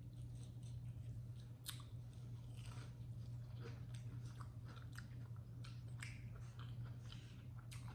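Close-up chewing of fried chicken with mashed potatoes: soft, wet mouth sounds with scattered small crunches and clicks. A low steady hum runs underneath.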